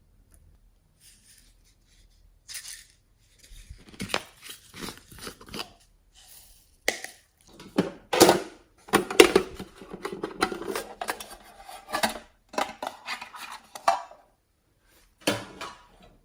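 A utensil scraping and clinking against a bowl as slime is stirred, in irregular bursts that start a couple of seconds in, with one last scrape near the end.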